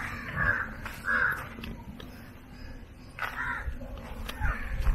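A crow cawing several times in short, harsh calls.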